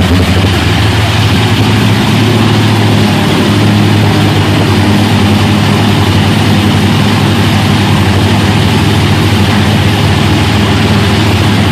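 Triple 557-cubic-inch big-block Chevrolet V8 engines of a 42-foot Fountain powerboat running steadily at speed, with a constant rush of wind and churning wake water.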